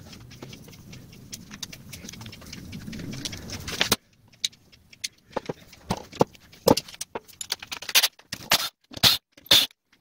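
Metal and plastic parts of a disassembled electric demolition hammer being handled on a bench: a few seconds of steady scraping and rubbing, then a string of sharp clinks and knocks as the motor housing and parts are moved.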